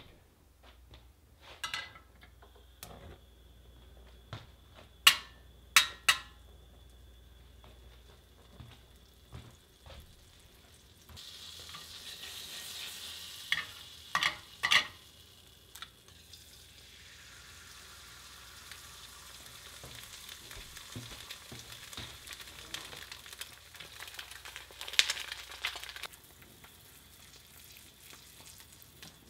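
A few loud sharp clicks and knocks, then fat starting to sizzle in a frying pan. About halfway through come three sharp taps as an egg is cracked, and the egg then fries with a steady sizzle until shortly before the end.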